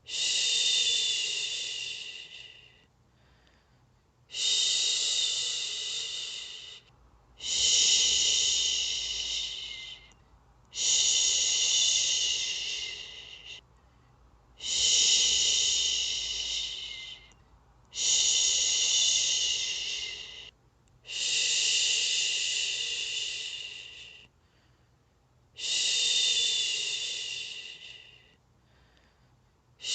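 A person shushing, a long soothing 'shhh' repeated eight times, used to lull a baby to sleep. Each shush starts suddenly and fades away over about three seconds, with a brief pause between them.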